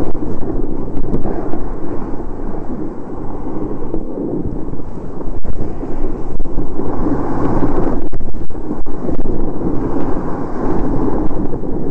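Wind buffeting the camera microphone while the filmer rides down a ski slope: a loud, uneven rushing noise that swells and dips.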